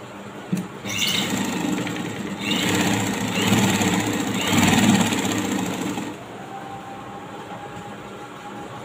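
Sewing machine running as it stitches a hem in fabric. It starts about a second in, after a single click, speeds up and gets louder, then stops about six seconds in.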